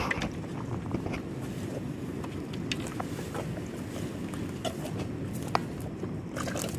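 Steady low rumble of wind on the microphone, with scattered small clicks and rustles as bamboo sticks and a plastic bag are handled.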